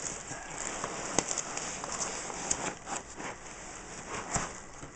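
Packing peanuts rustling and crackling continuously as hands dig through them in a laptop box, with a few sharper clicks.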